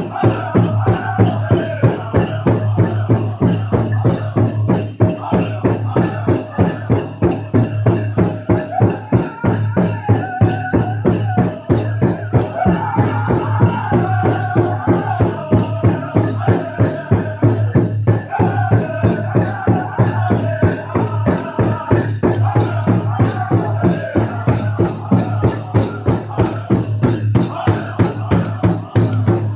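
Powwow drum group singing a contest song in high voices over a fast, steady beat on the big drum.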